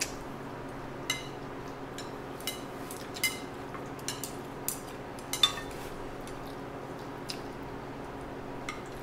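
Chopsticks clicking and tapping against plates as spaghetti is picked up and eaten: a handful of short sharp clicks, most of them in the first six seconds and only a couple near the end, over a steady low hum.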